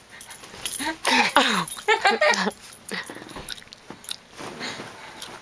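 Small dachshund vocalising as she reacts to a piece of chewing gum she dislikes: a few noisy outbursts about a second in, then a short wavering whine.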